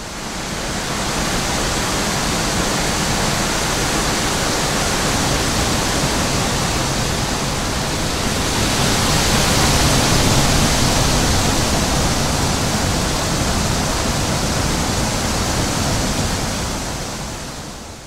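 Recorded wind sound effect: a steady rushing of wind with no whistle or howl, fading in at the start, swelling a little around the middle and fading out near the end.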